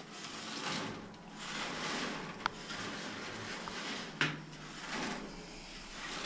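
Hands sweeping dried mushroom slices across a wire-mesh drying screen: repeated swishing rustles, with two sharp clicks about two and a half and four seconds in.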